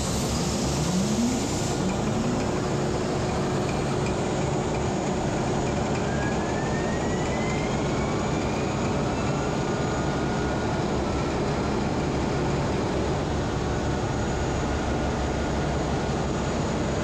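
Himsen marine diesel generator engine starting on compressed air: a brief air-start hiss under two seconds in as the engine fires and runs up, then the engine running steadily at speed. A fainter whine rising in pitch a few seconds in, from the turbocharger spooling up.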